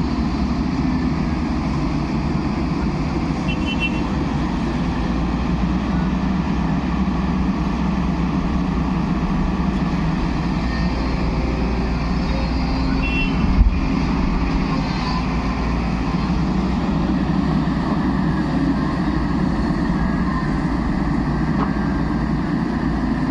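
Backhoe loader's diesel engine running steadily, with a single low thump a little past halfway.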